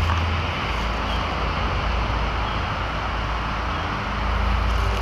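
Steady outdoor vehicle and road noise with a low rumble that swells near the start and again near the end.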